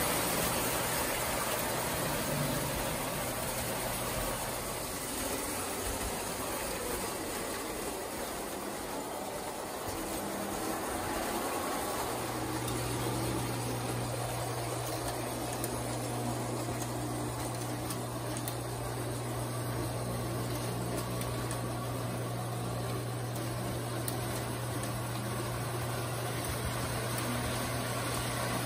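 1934 Lionel electric toy work train running on its three-rail track: a steady rumble of wheels and motor. A steady low hum comes in strongly about twelve seconds in.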